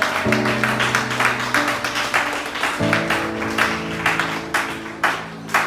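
Church band music: sustained chords that change twice, over a steady beat of about three strokes a second.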